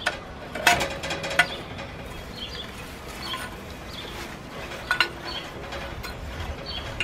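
An exhaust muffler being twisted and worked off its pipe: a ringing metal clank about a second in, then lighter clinks and scrapes of metal on metal.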